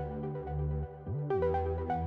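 Electronic background music: held synth bass notes under a plucked synth melody, with a bass note sliding up in pitch about a second in.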